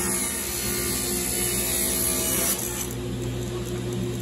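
Table saw running as a strip of wood is ripped along the fence. The cutting noise ends about two and a half seconds in, and the saw keeps running with no load.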